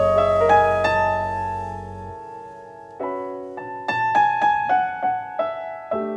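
Instrumental jazz: a held chord over a low bass note fades away over the first two seconds, then solo piano comes in about three seconds in, playing a melody with chords.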